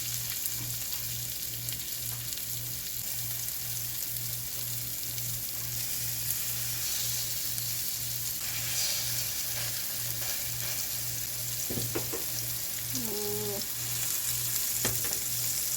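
Ground-chicken patties frying in a pan, a steady sizzle, with a low hum pulsing about three times a second underneath and a few light clicks near the end.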